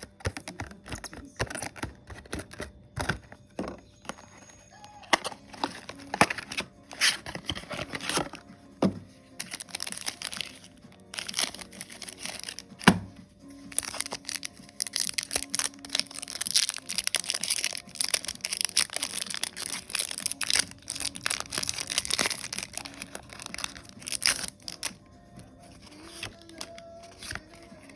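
Plastic and foil packaging of Pokémon booster packs being handled and torn open: irregular crinkling and sharp crackles, busiest in the middle stretch. Quiet music with a faint steady note runs underneath.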